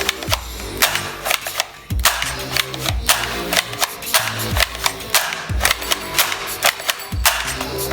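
Toy gun firing: a string of sharp clicks and shots, over background music with a deep bass beat.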